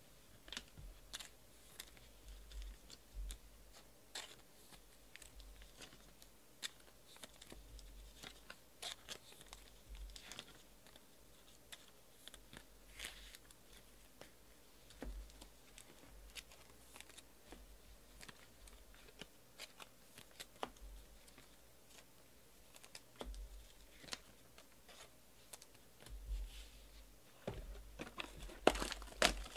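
Trading cards and plastic wrapping being handled on a tabletop: scattered soft clicks, slides and rustles. Near the end the crinkling of plastic wrap grows denser and louder as a sealed card box is picked up.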